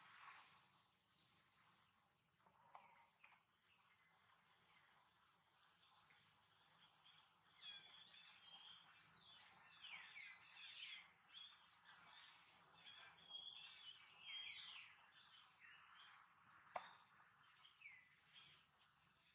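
Faint outdoor insect chorus: a steady, fast-pulsing high buzz, with high whistled and chirping calls over it, shrillest about five seconds in and busiest in the middle. A single sharp click sounds near the end.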